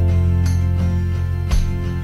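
Background music with plucked or strummed guitar-like notes.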